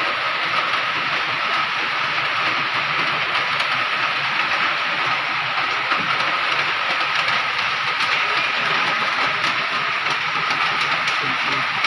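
Steady mechanical noise with a constant high whine, with a few faint light clicks.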